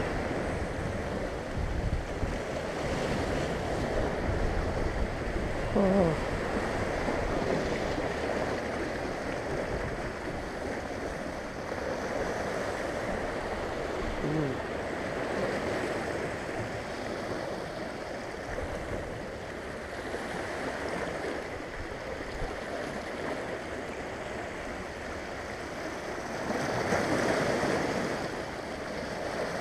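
Sea surf washing and breaking against a rocky shore, a steady rush of water with a louder wave near the end.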